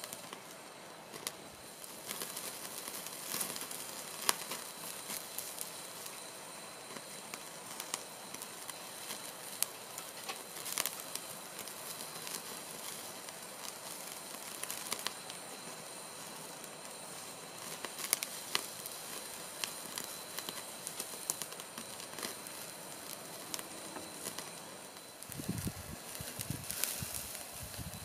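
Meat sizzling on a wire grill over an open fire, with the fire crackling and popping in sharp, irregular snaps throughout. A few low, soft knocks come in near the end.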